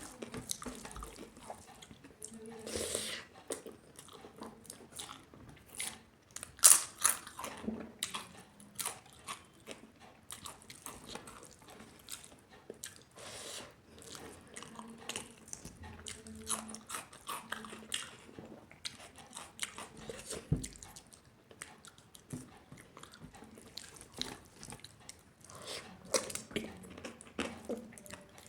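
Close-up chewing and biting of food, with irregular wet mouth sounds and crunches; the sharpest crunch comes about six and a half seconds in.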